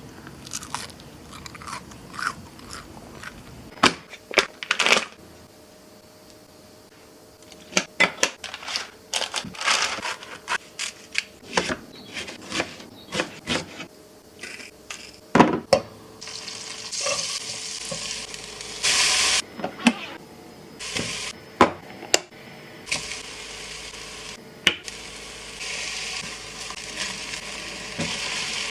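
Kitchen utensils knocking and clinking against bowls and pans. From about halfway through come stretches of steady high hiss, food sizzling in a frying pan, broken by short pauses and more clatter.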